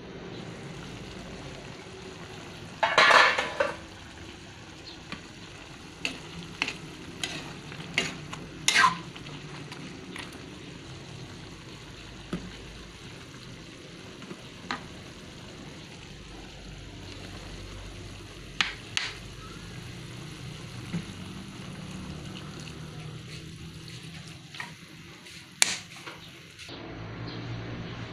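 Chicken pieces frying and simmering in a metal pan, with a loud metal clatter about three seconds in as the pan lid is lifted, then a utensil clinking and scraping against the pan now and then while the chicken is stirred.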